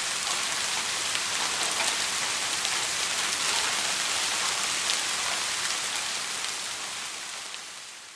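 Steady rainfall hissing on a surface, with fine ticks of individual drops; it fades out over the last couple of seconds.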